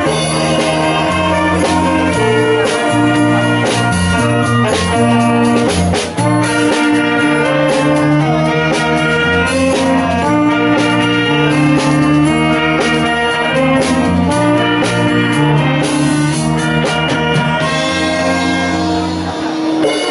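Wind band playing a pop tune live: saxophones, trumpets, euphonium and bassoon carry sustained melody and chords over keyboard and percussion, with a brief break about six seconds in.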